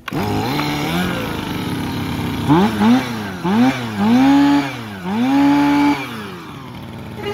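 Robin twin-cylinder two-stroke brush cutter engine starting and running, then revved up and back down several times from about two and a half seconds in before settling lower near the end.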